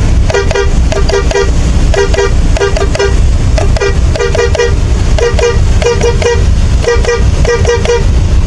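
Stock horn of a Hino RK8 bus sounding in short toots, fired in quick groups of three or four that repeat again and again, over a steady low rumble.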